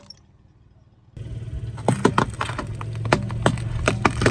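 After about a second of near quiet, a car engine hums steadily at idle while a tyre rolls over small eggplants, which crack and snap under it in a string of sharp crunches.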